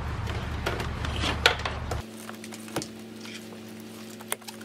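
Light plastic clicks and rustling as a wire is slipped under a car's plastic door-sill trim panel and the panel is handled, over a steady background hum that changes abruptly about two seconds in.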